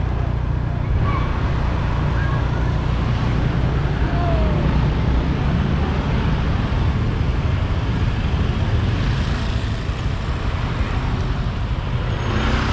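Steady low rumble and road noise of a car driving slowly through town traffic.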